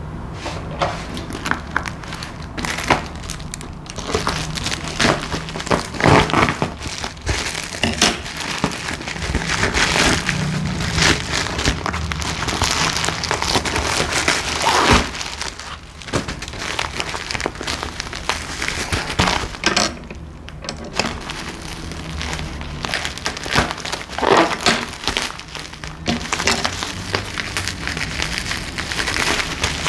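Plastic packaging crinkling and rustling in irregular bursts as an orange plastic mailer bag is opened and the bubble wrap inside is handled and snipped with scissors.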